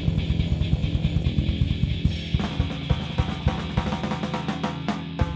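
Live punk rock band playing: fast drumming on bass drum and snare over sustained distorted guitar and bass. After about two seconds the drumming turns into spaced accented hits over a held chord, as the song winds to its close.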